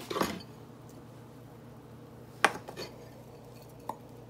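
A metal spoon knocking and clinking against a glass mixing bowl while soft dough is worked out of it: a few separate clinks, one at the start, two about two and a half seconds in, and one near the end.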